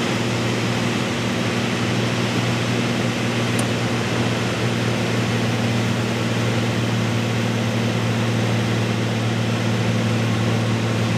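Piper light plane's piston engine and propeller heard from inside the cockpit on approach to land: a steady low drone over an even rush of air noise.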